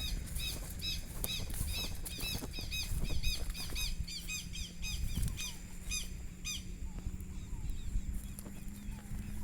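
A bird giving a rapid series of repeated chirps, about four a second, that stops about six and a half seconds in, over a constant low rumble.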